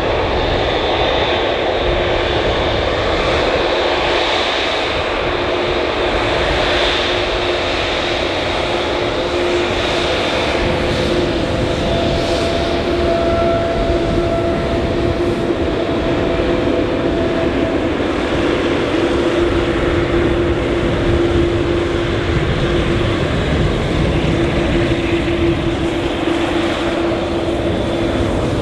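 Boeing 787 Dreamliner's turbofan engines running at taxi power as the airliner rolls slowly past: a steady rumble with a held low whine, and a higher tone joining for several seconds around the middle.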